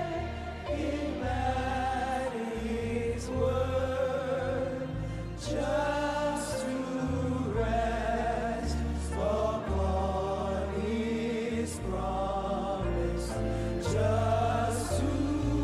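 Live gospel worship music: voices singing a slow, drawn-out melody over sustained bass and keyboard chords that change every second or two.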